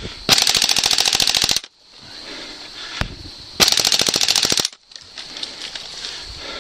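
Airsoft rifle firing two full-auto bursts of rapid, evenly spaced shots, each lasting about a second, with a couple of seconds between them.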